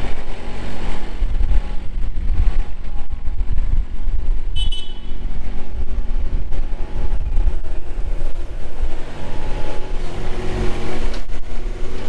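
A CastLoaders compact pivot-steer loader's engine running steadily as the machine drives and turns close by, with a brief high squeak a little over a third of the way through.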